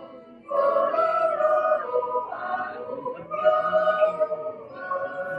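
A Swiss yodel choir singing a cappella in held chords. After a brief breath just after the start, the next phrase comes in.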